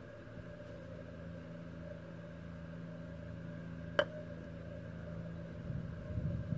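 An iron clipping a golf ball on a chip shot: one short, crisp click about four seconds in. A steady low hum runs underneath, and wind starts to buffet the microphone near the end.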